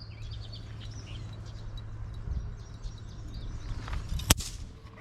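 A single sharp crack about four seconds in, a fishing rod snapping under the strain of a snagged lure, over small birds chirping and a steady low rumble of the outdoors.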